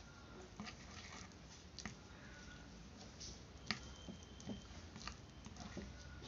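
Spoon stirring a thick paste in a small glass bowl: faint, scattered clicks and scrapes against the glass, with one sharper click a little past halfway and a few brief high squeaks.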